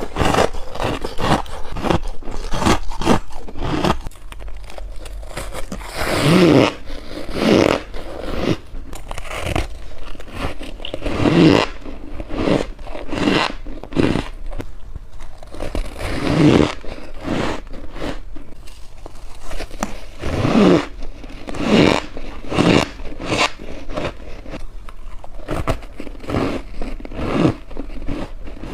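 Close-miked biting and chewing of freezer frost: a dense run of crisp, crackly crunches several times a second, with heavier, fuller bites every few seconds.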